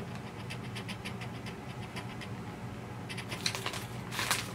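Hard sour candy balls being handled, a run of light clicks and scratches that gets louder near the end.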